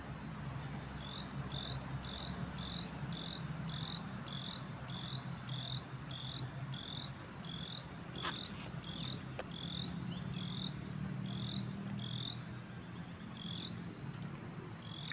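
Pond-side animals calling: a run of short chirps, each rising in pitch, about two to three a second, over a steady high insect drone and a low hum. Two faint clicks come midway.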